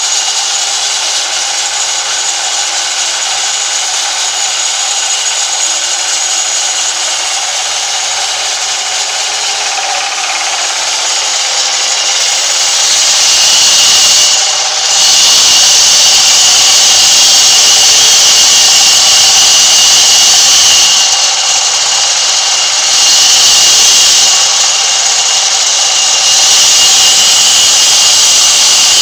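Large vertical band saw ripping through timber: a loud, steady, high-pitched rasping whine. It grows louder about halfway through and eases off briefly two or three times.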